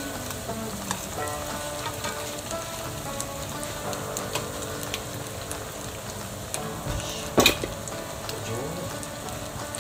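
Pumpkin-and-cheese gyoza shallow-frying in hot oil in a frying pan, a steady crackling sizzle. A single sharp knock about seven and a half seconds in.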